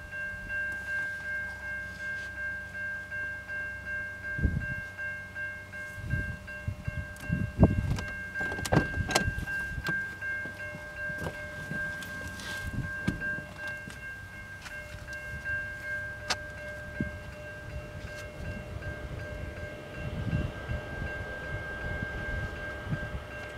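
Rails ringing with several steady, high metallic tones as a freight train approaches, over gusts of wind on the microphone and a few sharp clicks.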